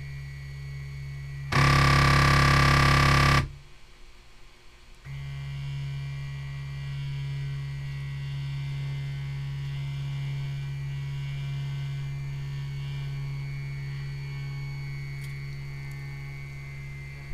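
Trinus 3D printer's stepper motors driving the Z axis under manual control: a steady pitched hum. About two seconds in there is a much louder, buzzier burst lasting a couple of seconds, then a brief lull before the steady hum resumes.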